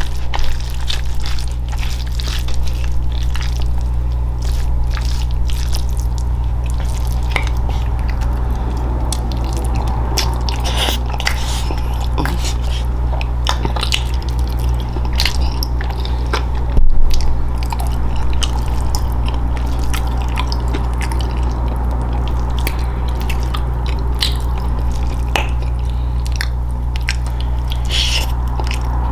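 Close-miked chewing and biting, with crunches and wet mouth sounds, over a steady low hum. There is one louder knock about seventeen seconds in.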